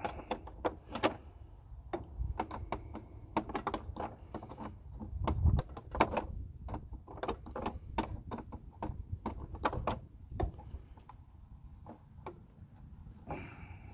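Adjustable wrench clicking and knocking on a still-tight dash screw of a garden tractor, turned a little at a time: irregular sharp clicks throughout, with a brief low rumble about five seconds in.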